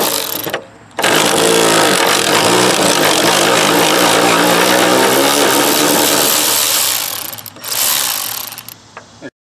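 Cordless electric ratchet running, backing out a spindle mounting bolt on a mower deck: a short burst, then a long run of about six seconds, then another short burst near the end.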